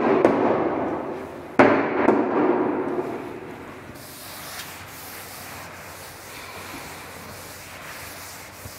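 A duster wiping chalk off a blackboard: two loud sudden rubs in the first two seconds, each fading over about a second, then quieter steady wiping strokes.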